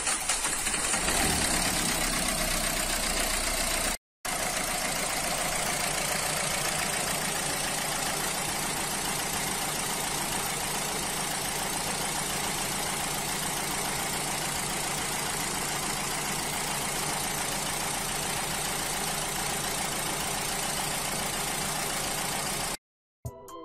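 Renault Mégane 3's 1.5 dCi four-cylinder diesel with Siemens injection idling steadily with diesel clatter just after a reluctant cold start, an engine the owner suspects of drawing air into its fuel system. The sound drops out briefly about four seconds in.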